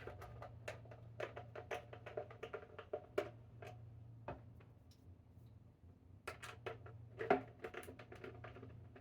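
Hard plastic helmet parts and small screws clicking, tapping and clattering as they are worked loose by hand. There is a quieter stretch about halfway, then a sharp louder click. A steady low hum runs underneath.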